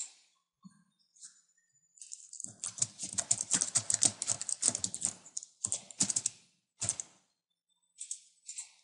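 Typing on a computer keyboard: a quick run of keystrokes lasting about three seconds, then a few scattered single key presses.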